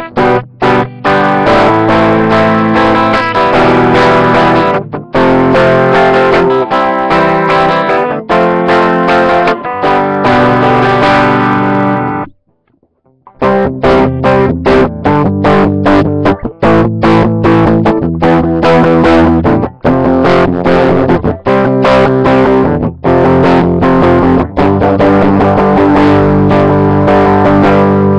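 Electric guitar (a Tokai Talbo played through a Roland GR-55 guitar synth modeling a Les Paul Standard into a JC-120 amp with RAT distortion) strumming distorted rhythm chords with frequent short choppy stops. The playing breaks off for about a second near the middle, then picks up again.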